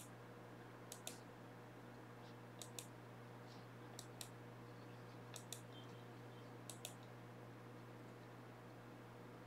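Computer mouse clicking: five pairs of short sharp clicks, about one pair every second and a half, over a faint steady low hum.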